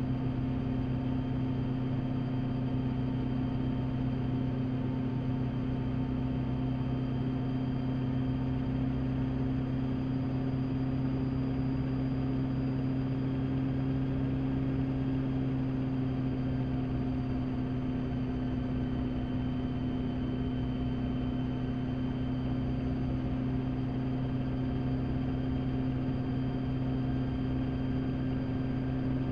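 Rotorway kit helicopter's engine and rotors heard from inside the cockpit in steady flight: a constant droning hum made of two steady low tones, with no change in pitch or power.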